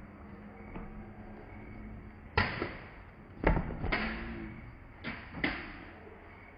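Sharp knocks and thuds of a sepak takraw roll spike: the woven plastic ball struck by the foot and the player's body landing on the concrete court, about five impacts, the heaviest a deep thud about halfway through.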